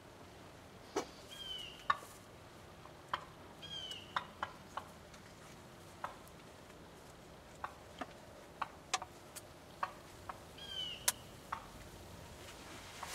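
Birds calling: a short high chirp heard three times, a few seconds apart, over scattered sharp ticks and clicks.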